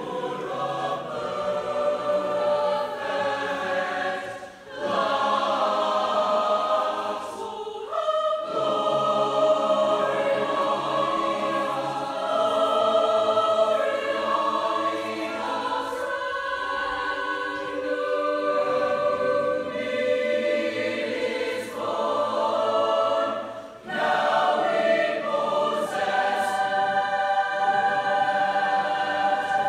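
Chamber choir singing in sustained chords, with two short breaks between phrases.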